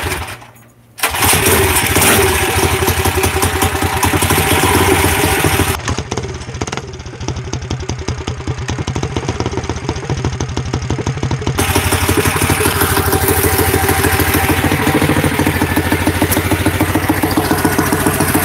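Coleman CT100U mini bike's Predator 212 single-cylinder engine pull-started, catching about a second in and then running steadily.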